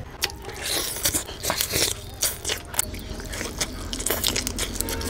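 Close-miked eating sounds: a person eating rice and curry by hand, with wet squishing of the food and chewing. It comes as an irregular run of sharp mouth clicks and smacks.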